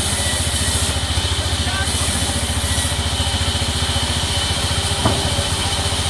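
Sawmill machinery running steadily with no cut being made, a fast, even low throb like an idling engine. One short sharp knock about five seconds in.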